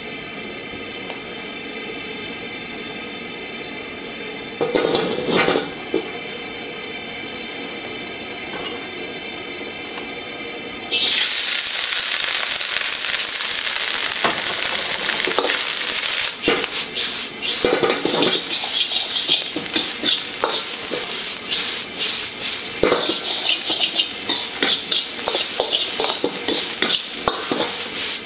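A steady hum for about the first eleven seconds, with a brief louder noise around five seconds in. Then the wok suddenly starts sizzling loudly as day-old rice fries in it, and a metal wok ladle stirs and tosses it with repeated scrapes and clinks against the wok.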